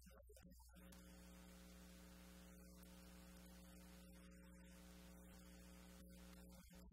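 Near silence: a faint, steady electrical mains hum with a light hiss.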